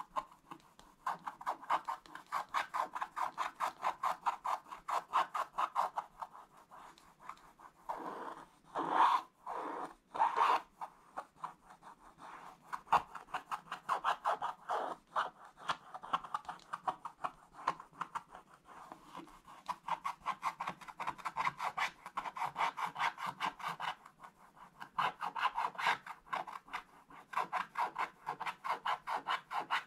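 Wooden scratch-art stylus scraping the black coating off a scratch-paper page in quick short strokes, several a second, with brief pauses and a few louder, longer scrapes about nine and ten seconds in.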